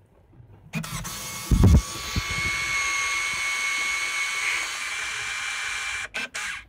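The motor drive of a Canon EOS-1 film SLR with the Power Drive Booster E1 running steadily with a high whine for about six seconds, with two brief breaks just before it stops. A heavy thump about a second and a half in.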